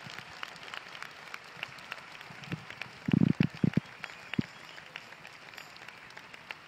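Concert audience applauding, thinning to scattered individual claps, with a cluster of loud low thumps about three seconds in and one more just after.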